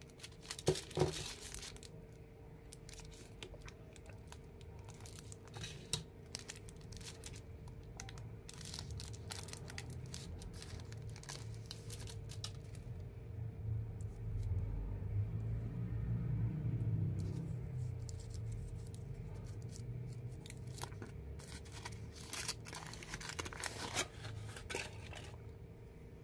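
Thin foil wrapper crinkling and tearing as it is peeled off a heart-shaped chocolate lollipop, as a run of short crackles that bunch up about a second in and again near the end. A low rumble swells in the middle.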